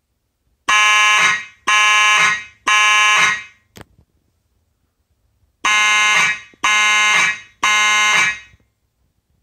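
Simplex 2901-9833 fire alarm horn sounding in the three-blast temporal (code 3) evacuation pattern: two groups of three blasts about a second apart, with a pause between the groups. A short click falls in the pause. The alarm comes from a pulled Simplex 4251-20 manual pull station.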